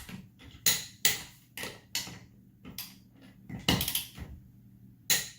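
Sharp metallic clicks and clanks of a wrench and socket on wheel lug nuts being torqued to spec, coming irregularly about once or twice a second.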